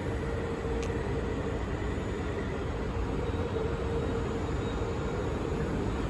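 Taichung MRT Green Line metro train at the station, a steady running hum with a constant mid-pitched tone over it and a single brief tick about a second in.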